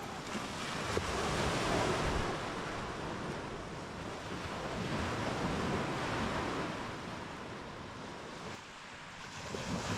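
Lake waves washing onto the shore, a steady rush that swells and ebbs every few seconds, with some wind on the microphone.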